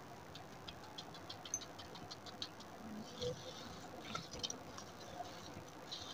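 Metal spoon scraping watermelon flesh off the rind into a steel pot of milk and ice: a faint, quick run of small clicks and scrapes, with a few louder scrapes about three and four seconds in.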